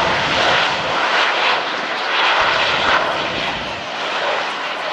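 Twin-engine jet noise from Blue Angels F/A-18 Hornets flying a slow, nose-high pass: a loud, steady rushing roar that swells and eases slightly.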